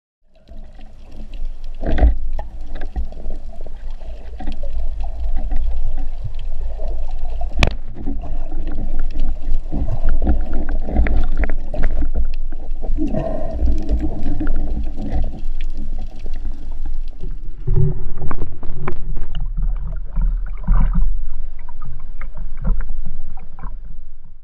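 Muffled underwater sound picked up through a camera housing: a constant low rumble of water moving past as the spearfisher swims, with scattered knocks and clicks, and one sharp click about eight seconds in.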